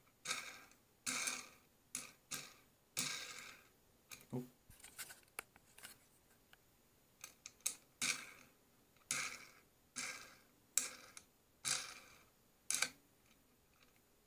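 A metal nut and washer being spun by hand onto a steel threaded rod: a string of short scraping clicks and light metal clinks, roughly one a second, stopping shortly before the end.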